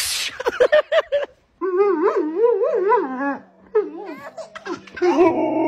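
A baby giggling and squealing in long, wavering runs of voice while a husky nuzzles and tickles him. Before that there is a sudden burst and a few short, quick cries.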